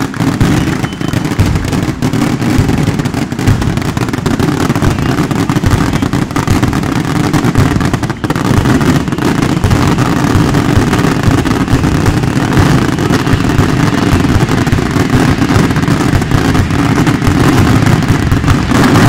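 A long barrage of firecrackers going off in rapid succession, a dense unbroken crackle of bangs, with a brief lull about eight seconds in.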